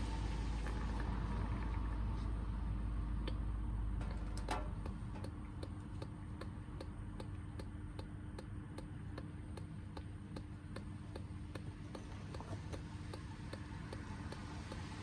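Old gear oil draining from a manual transmission into a drain pan: a steady pour for about the first four and a half seconds, then a regular ticking of drips, a few a second.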